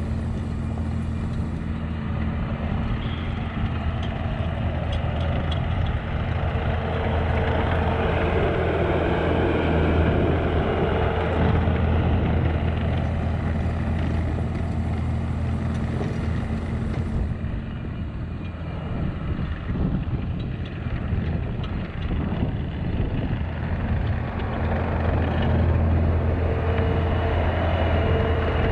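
Diesel engine of a piece of heavy earthmoving equipment running steadily, its sound swelling and easing as the machine works.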